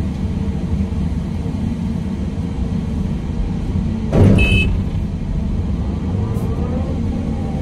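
Excavator engine and hydraulics running steadily under load, heard from inside the operator's cab as a bucket of dirt is dumped into a dump truck. A short, loud clatter stands out about four seconds in.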